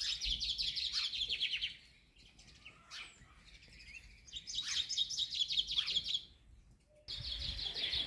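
Common chaffinch singing: two song phrases, each a quick run of high notes lasting about two seconds, the first ending about two seconds in and the second about halfway through.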